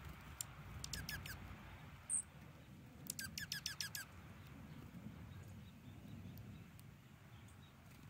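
Small songbird calls: a quick run of four sharp, downward-sweeping high notes about a second in, a single very short high note just after two seconds, then a faster series of about seven descending notes from about three to four seconds.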